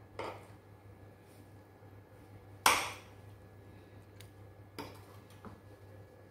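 Metal spoon clinking and knocking against cookware as caramelized lemon slices are lifted from a frying pan: a few light taps and one sharp knock about two and a half seconds in.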